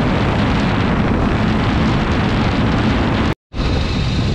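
Wind buffeting the microphone of a camera held out from a moving TVS Apache RR 310 motorcycle, a loud, steady rush with the bike's running noise underneath. The sound cuts out for a moment about three and a half seconds in.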